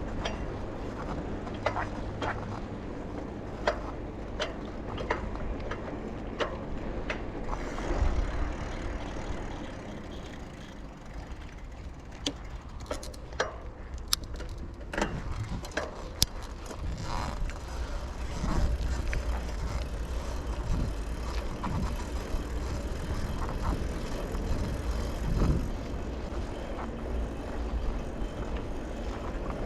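Bicycle riding heard from the rider's position: a steady low rumble of tyres and wind on the microphone, with frequent sharp clicks and rattles from the bike over bumps.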